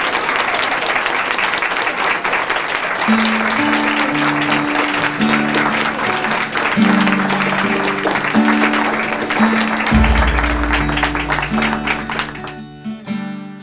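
Audience applauding. Background music of short melodic notes comes in about three seconds in, with a deep bass note joining near ten seconds in, and the clapping thins out near the end.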